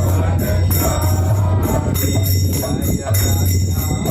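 Devotional music: jingling metal percussion struck in a steady rhythm, with singing voices underneath.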